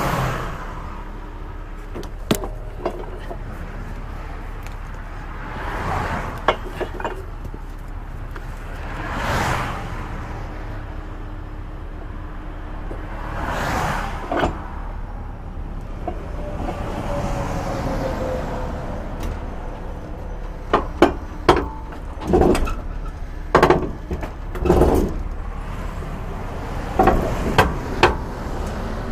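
Highway traffic passing on the interstate: vehicles sweep by one after another, each swelling and fading over a steady low rumble. In the last third come a series of sharp knocks and clanks.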